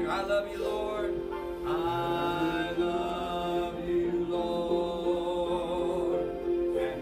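Electronic keyboard playing a slow worship song, holding sustained chords under one steady held note, with voices singing along.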